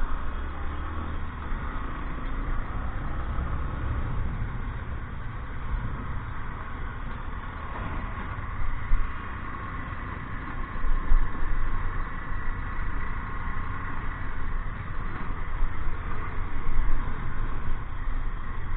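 A vehicle's engine running steadily under a low rumble of road noise, swelling louder a few times.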